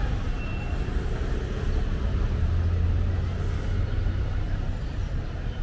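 Road traffic on a city street: steady engine and tyre noise, with a deeper low rumble from a vehicle about halfway through.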